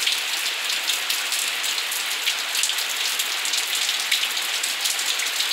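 Heavy rain falling steadily: a dense, even hiss with scattered drop ticks.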